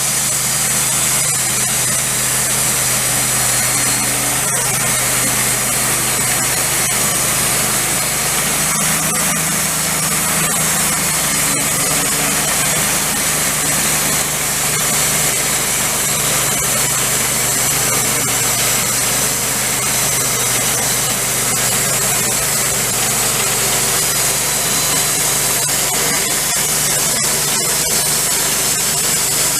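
Wood-Mizer LT15 band sawmill running steadily, its engine humming under a bright hiss from the thin-kerf band blade cutting red oak. The engine note shifts slightly about nine seconds in.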